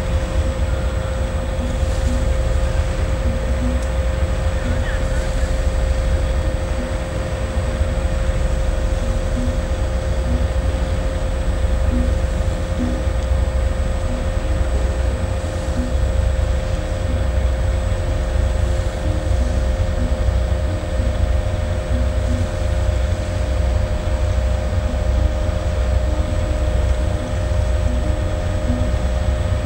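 Large ferry's engines running, a steady low rumble with a constant hum, with wind buffeting the microphone.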